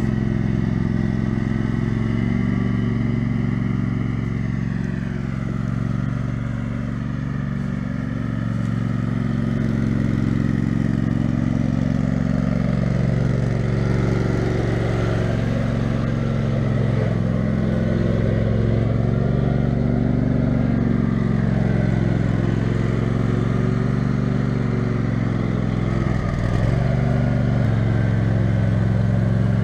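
Engine of a lifted off-road Toro riding lawn mower running steadily as it is driven over rough, leaf-covered ground. Its loudness dips for a couple of seconds about six seconds in, and the pitch briefly wavers near the end.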